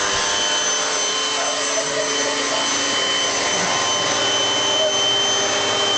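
Vacuum cleaner running steadily: an even rushing noise with a constant high whine.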